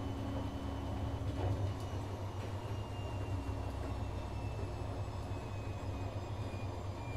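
Siemens iQ500 washing machine finishing its spin: a steady low motor hum with a faint high whine that slowly falls in pitch as the drum slows at the end of the programme.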